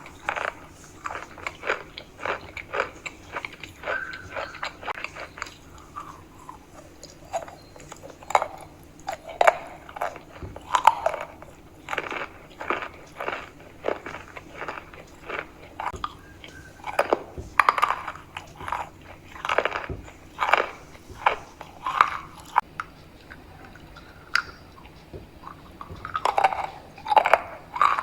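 Close-miked biting and crunchy chewing of chalk: crisp crunches come in irregular clusters, with short lulls between bites.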